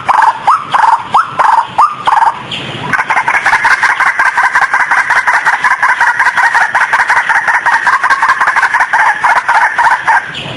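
White-breasted waterhen calling. A quick series of short upward-sweeping notes comes first, then from about three seconds in a long, fast, even run of repeated notes.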